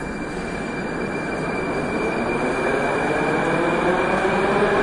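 Moscow Metro train running alongside the platform, growing steadily louder. It carries a thin steady high whine over its rumble, and from about three seconds in a lower motor whine rises in pitch as the train picks up speed.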